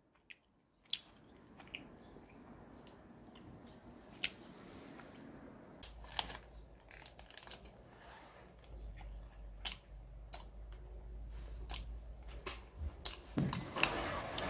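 Close-up chewing of a packaged chicken-breast snack, with scattered small clicks and crinkles from its plastic wrapper. Louder rustling and handling noise near the end.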